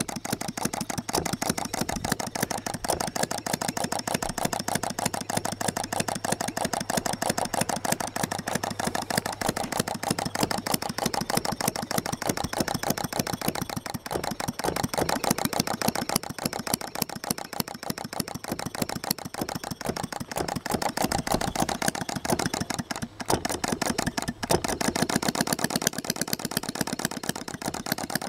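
Rudy Kouhoupt's Pioneer model engine, a two-stroke non-compression gasoline engine, running steadily with a rapid, even ticking of firing strokes and moving parts. It is warming up.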